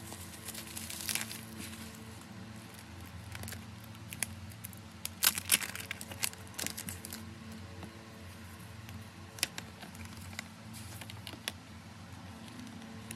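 Bubble-wrap packaging and a paper envelope crinkling and rustling as they are handled and unwrapped, with scattered sharp crackles, a busy cluster about five to seven seconds in and single clicks later.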